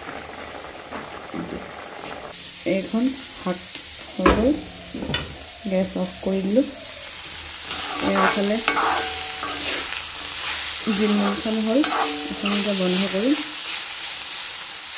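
Chopped leafy greens and peas sizzling in oil in an aluminium kadai, starting abruptly about two seconds in. A metal spatula stirs them throughout, scraping and squeaking against the pan in repeated strokes, with a few sharp knocks.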